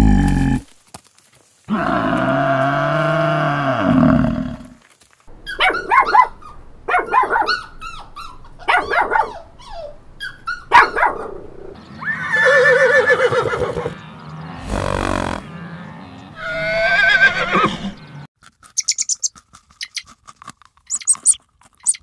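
A water buffalo's long, low call, followed by a run of short animal calls. About twelve seconds in, a horse whinnies with a wavering pitch, snorts, and whinnies again. In the last few seconds a rabbit chews with quick, soft clicks.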